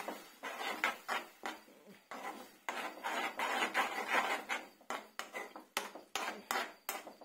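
A steel spoon scraping and clinking against a non-stick kadai, two or three sharp clicks a second, as it stirs a thin mint chutney. Under the clicks the chutney bubbles with a steady hiss as it is brought to a boil.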